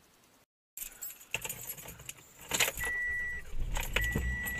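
Car keys jangling and clicking at the ignition, then a car's electronic warning chime beeping repeatedly, about once a second, over a low steady hum.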